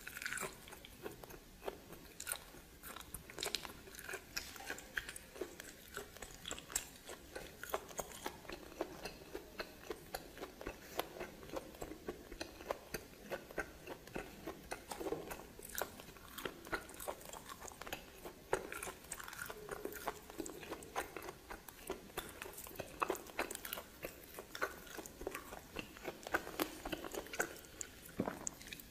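A person biting and chewing steamed snake: a steady run of short, sharp crunches and mouth clicks.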